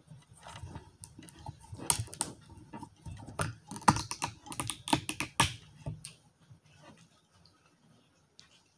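Sharp, irregular clicks and cracks as a stiff screw cap is forced and twisted off a bottled drink, dying away about six seconds in.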